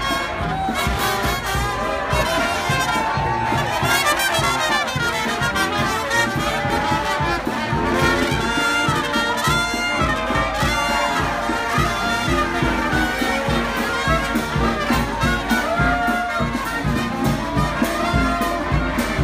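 Street brass band playing: horns and a sousaphone over a steady drum beat.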